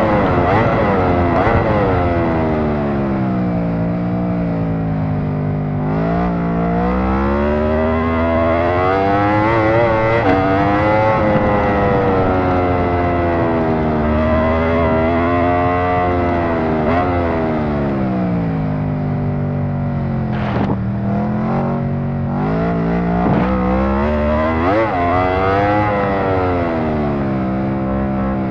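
Aprilia RSV4 superbike's V4 engine running hard, its pitch repeatedly sweeping down and climbing back up every few seconds, with a couple of brief sharp drops in the second half.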